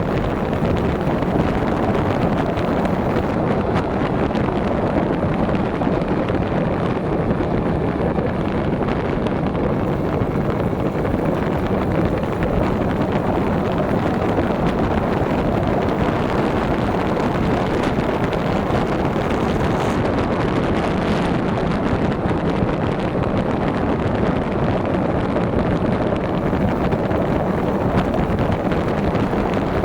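Steady wind rushing over the microphone of a moving bicycle, an even noise that never breaks.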